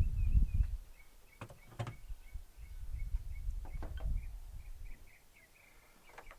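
Camping gear being handled and packed, with low rumbling handling noise and a few sharp knocks and clicks. Behind it, a short high chirp repeats two or three times a second.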